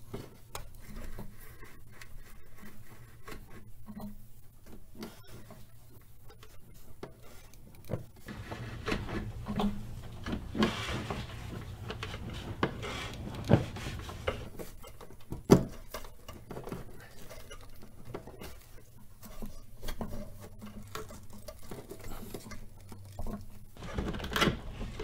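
Wiring harness in split plastic loom being pulled by a line up through a rubber grommet in the firewall cowl: irregular rustling, rubbing and small clicks and knocks, with two sharper knocks a little past the middle, over a faint low hum.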